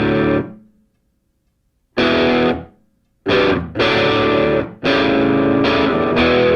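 Outro music: loud distorted electric guitar chords, played in short blocks with abrupt stops and brief silences between them.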